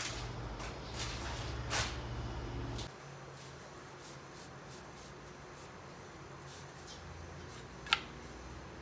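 Steady low rumble of a gas stove burner under a tortilla warming in a nonstick pan, with a few light ticks; the rumble drops to a quieter hum about three seconds in, and a single sharp click sounds near the end.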